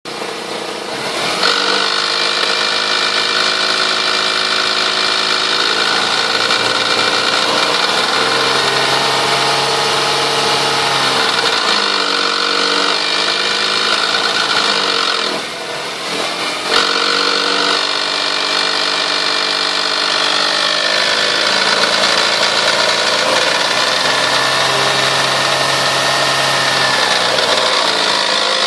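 1998 Toyota Sienna's V6 engine revved up and held, then let fall back, several times over, with a steady high-pitched whine on top. This is the strange noise that comes in between about 2000 and 4000 rpm, which the owner hears loudest from the manifold and underneath.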